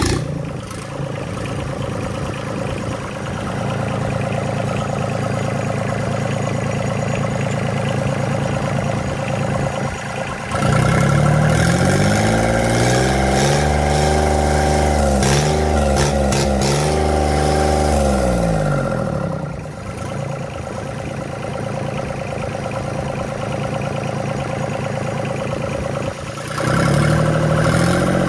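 Yanmar 3T70 three-cylinder diesel engine, just started and idling. About ten seconds in it is revved up on the hand throttle, held high for several seconds and let back down to idle, then revved again near the end.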